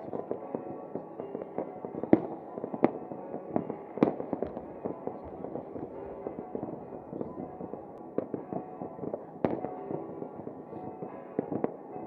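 Fireworks going off: irregular sharp bangs and pops, a few of them much louder than the rest, over a continuous crackling rumble. The loudest bangs come about two and four seconds in.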